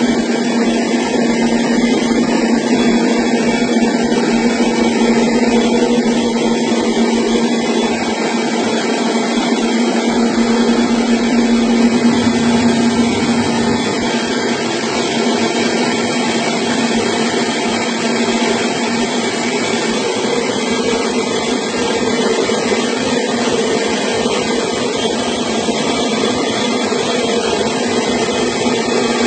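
Small rice milling machine running steadily: a constant motor hum with a strong low tone and a hiss over it.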